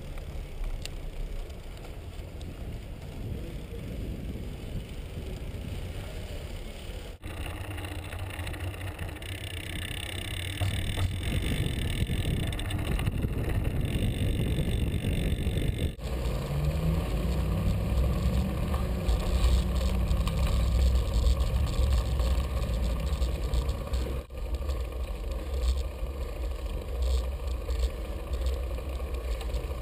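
Wind buffeting and road rumble picked up by a GoPro on a moving bicycle, louder and heavier after about ten seconds, with brief dropouts three times.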